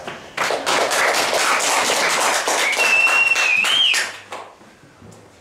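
Audience applauding for about four seconds, with a whistle partway through that rises and then drops; the clapping dies away about four seconds in.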